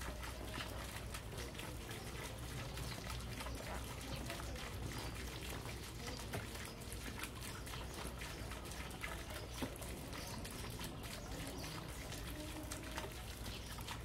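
Small garden fountain trickling steadily into a pond, with many small splashes. Faint voices of people nearby come through near the end.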